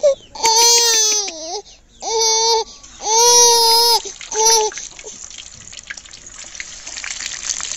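A young child cries out in four loud, high-pitched wails over the first few seconds. From about five seconds in, hot oil sizzles steadily as raw chicken leg pieces fry in the pan.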